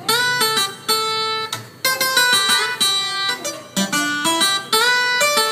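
Videoke backing track starting its intro: plucked guitar notes played one after another in a steady rhythm.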